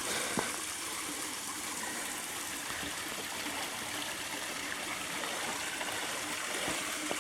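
Creek water flowing and trickling over rocks, a steady rush. A single sharp click about half a second in.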